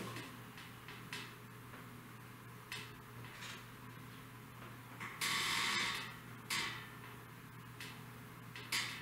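Marker pen writing on a whiteboard: short strokes at irregular intervals, with one longer stroke a little past the middle, over a steady low hum.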